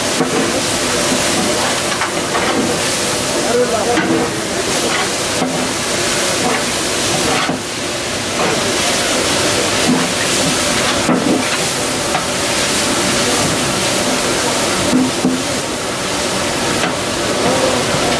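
Battered cauliflower pieces deep-frying in a large kadai of hot oil: a loud, steady sizzle and hiss.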